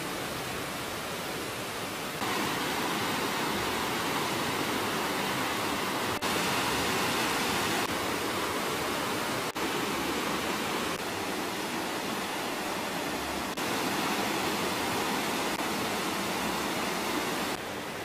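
Mountain stream rushing over rocks: a steady hiss of flowing water that jumps abruptly louder or softer several times.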